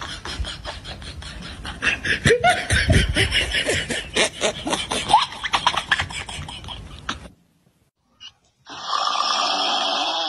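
People laughing in short bursts over rapid clicking, which stops abruptly about seven seconds in. After a moment's silence a steady even noise begins.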